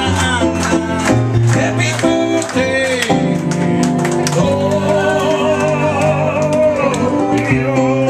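Live music: guitar strumming a steady, upbeat rhythm with a singer, whose voice holds a long wavering note in the middle.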